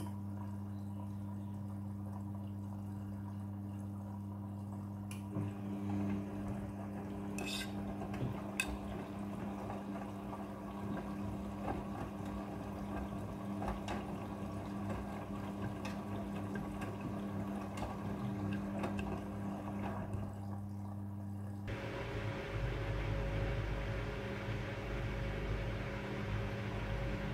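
Front-loading washing machine filling with water for its prewash: a steady electrical hum with water rushing in, two sharp clicks, then about 22 seconds in a low rumble and a steady whine come in as the machine starts a new stage.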